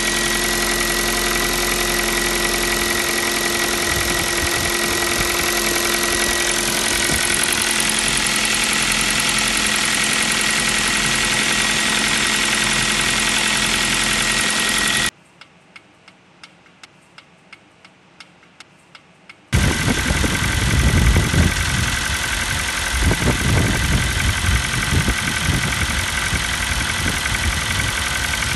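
Kia Rio 4's 1.6-litre four-cylinder petrol engine idling with a knock that the owner puts down to piston slap, a fault this engine shares with the Rio 3's. About halfway through, the engine sound drops away for several seconds, leaving faint ticks about three a second, then comes back.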